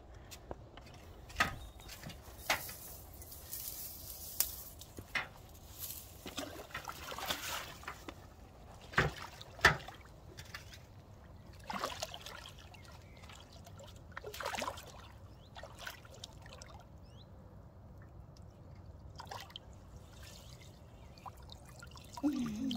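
Water splashing and trickling as a landing net holding a large fish is dipped into a pond and lifted out, water dripping from the mesh. Irregular sharp splashes, the loudest two close together about nine and ten seconds in.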